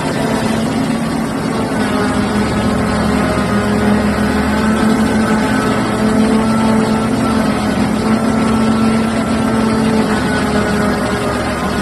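Liebherr R9800 mining excavator's diesel engines running steadily, a loud, even drone.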